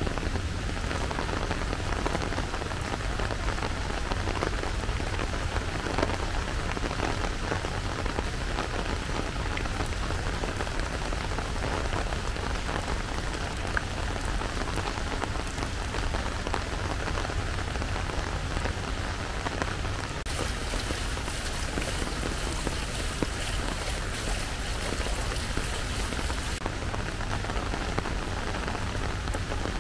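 Steady rainfall: a dense hiss full of small drop ticks over a constant low rumble. The hiss turns brighter for about six seconds past the middle.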